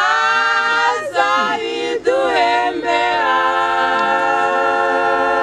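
Small group of women singing a Kinyarwanda gospel song a cappella in harmony, the phrase closing on a long held note from about three seconds in.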